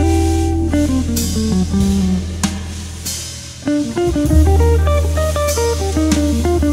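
Recorded music with guitar, bass and drums, played loud over a PA loudspeaker: a held bass note under a stepping melody, with sharp drum hits.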